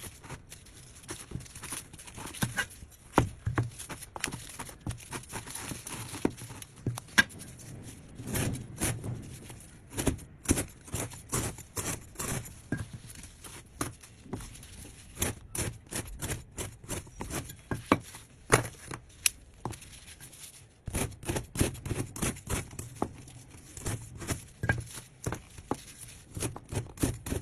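Kitchen handling noises: irregular clicks, taps and knocks from objects being handled, with a brief lull about two-thirds of the way through.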